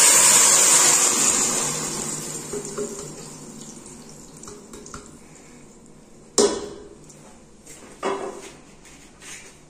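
Blended chile and tomato sauce poured into hot oil in a stainless steel pot, sizzling loudly at first and dying down over the first few seconds. Two sharp clanks of cookware follow, about six and eight seconds in.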